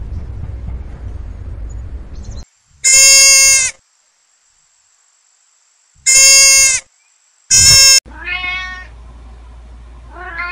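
Domestic cat meowing: five drawn-out meows, the first three very loud and the last two softer.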